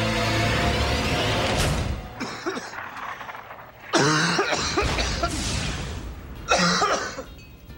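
A man choking and coughing in a fit, with harsh gasps and two loud coughs about four and six and a half seconds in. Background music fades out in the first two seconds.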